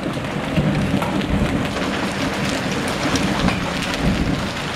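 Heavy rain and hail pouring onto a flooded paved alley: a dense, steady hiss dotted with sharp ticks of hailstones striking, over an uneven low rumble.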